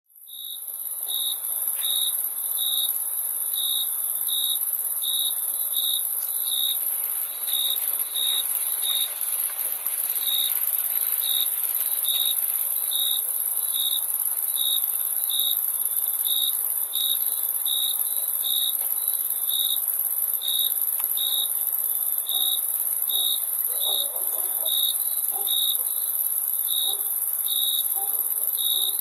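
Crickets chirping: a steady high-pitched trill under one cricket's clear chirps, repeated evenly a little more than once a second. Fades in from silence at the start.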